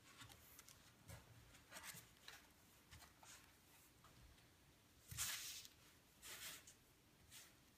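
Faint rustles, slides and soft taps of plastic-feel playing cards being handled on a cloth-covered table, with a longer swish about five seconds in as the deck is ribbon-spread across the table.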